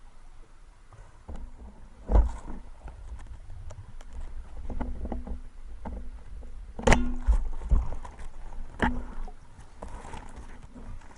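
Water sloshing and splashing with a low rumble, broken by several sharp knocks, the loudest about two seconds in and again about seven seconds in.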